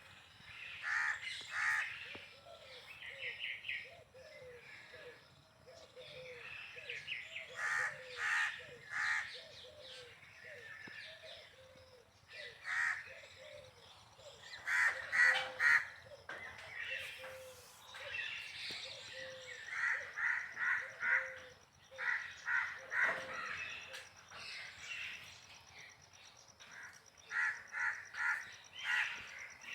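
Birds calling: harsh calls in quick runs of three or four, repeated throughout, over a lower, evenly repeated series of short notes that stops about two-thirds of the way through.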